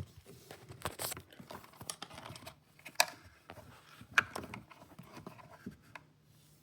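Scattered light clicks and rustles of wiring and plastic parts being handled inside a dishwasher, with a few sharper clicks about a second apart.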